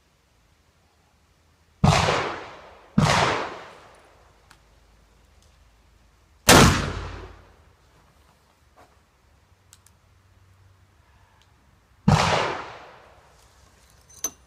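Four gunshots, each ringing out and dying away over about a second. The first two come about a second apart, the third a few seconds later, and the fourth after a longer pause. A short sharp click sounds near the end.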